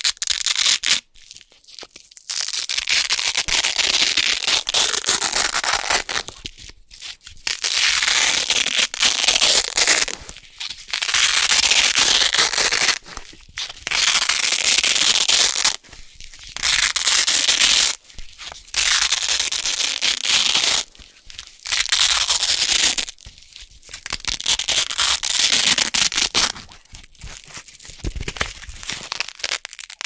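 Hook-and-loop (Velcro) fastener strips peeled apart by hand again and again. Each peel is a ripping sound lasting one to three seconds, about ten in all, with short pauses between.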